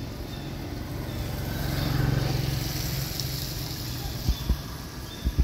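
A motor vehicle passing, its low engine hum swelling to a peak about two seconds in and then fading. A few short low knocks near the end.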